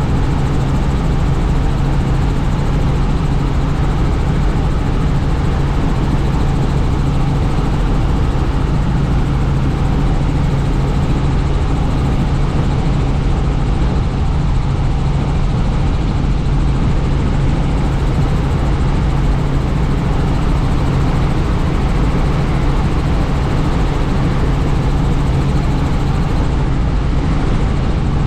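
Helicopter in flight heard from inside its doors-off cabin: a steady, loud drone of engine and rotor with a low hum, and rushing air.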